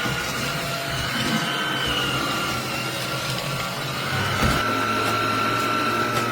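Dreame Z20 cordless stick vacuum running steadily, a rushing noise with a high whine, with a short knock about four and a half seconds in.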